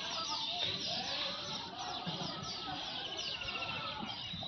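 A flock of small birds chirping together: many short, falling chirps overlapping continuously, with a fast trill now and then.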